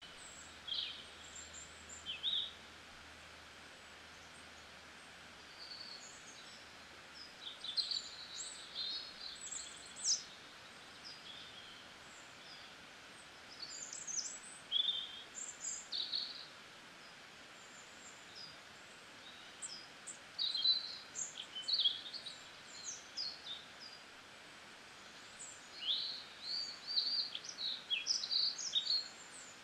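Birds chirping: short, high calls that come in scattered clusters over a steady faint hiss.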